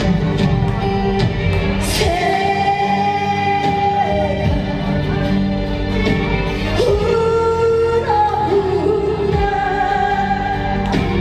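Amplified song: a woman singing long held, gliding notes into a microphone over a loud backing track.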